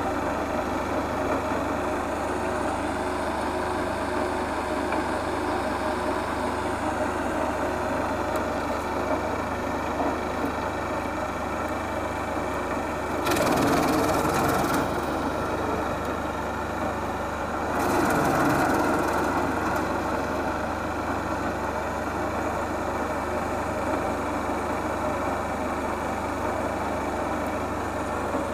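Wood chipper engine running steadily, with two louder, harsher bursts about halfway through, a few seconds apart, as branches go through the chipper.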